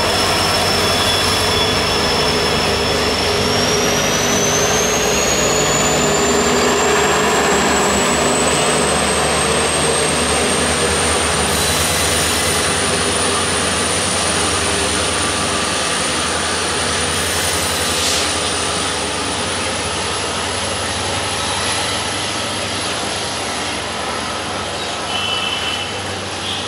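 Diesel-hauled passenger train running through without stopping: a WDP-4B diesel locomotive passes, then its coaches roll by in a steady, loud run of wheel-and-rail noise. A high whine climbs in pitch a few seconds in and then holds.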